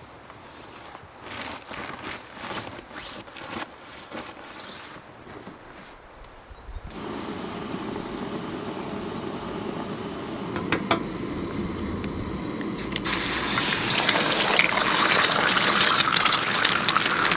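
Rooftop tent fabric rustling, with light knocks, as it is folded shut. About seven seconds in, a white-gas stove burner is running with a steady hiss under a Muurikka griddle. Near the middle, an egg starts sizzling on the hot griddle and a louder, brighter frying hiss builds.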